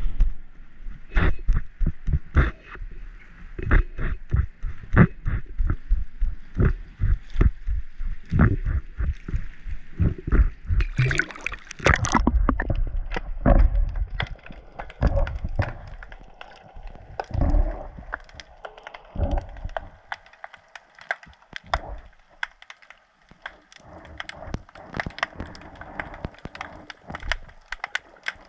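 Water sloshing against an underwater camera, with frequent sharp knocks and bumps on its housing. About eleven seconds in there is a hissing splash as it goes under. After that come quieter, muffled underwater clicks and knocks.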